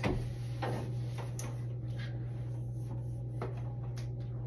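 A few light, scattered knocks and taps from handling a floor mop, over a steady low hum.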